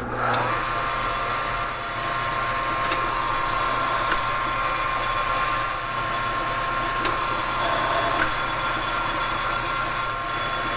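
South Bend lathe switched on and running steadily during a thread-cutting pass, with a constant whine and low hum from its drive and a few light clicks along the way.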